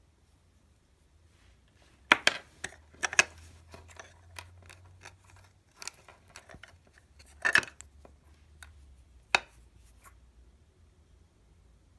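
Clicks and clatter of the hard plastic Apple EarPods case being handled, in a run of sharp knocks and smaller ticks that starts about two seconds in and stops a couple of seconds before the end.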